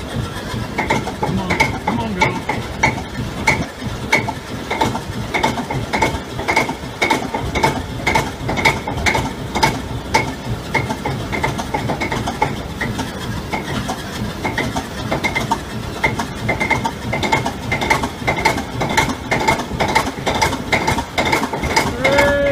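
Old diesel locomotive engine running rough just after a cold start, a heavy rhythmic clattering knock about twice a second that quickens to three or four a second near the end as it picks up speed.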